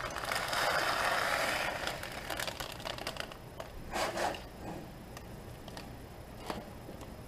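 Dry pasta poured from a plastic bag into a steel pot of liquid, a dense rustling for about a second and a half. Scattered small clicks and crinkles follow, with a short louder rustle about four seconds in and a click later.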